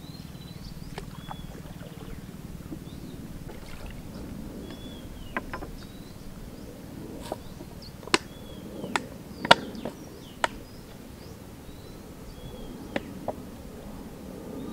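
A wooden boat being paddled across still water, the wooden paddle knocking sharply against the hull about eight times through the middle, the loudest knock about two-thirds of the way in. Short high chirps come and go faintly.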